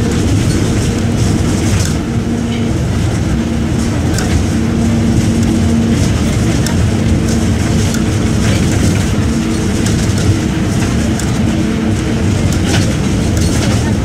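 Mercedes-Benz OF-1722M bus's OM-924 LA four-cylinder inline diesel engine (218 hp) running with a steady drone, with scattered clicks and rattles.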